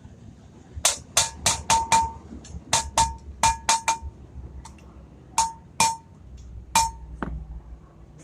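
Hammer striking metal, about a dozen irregular blows, many leaving a short ringing note.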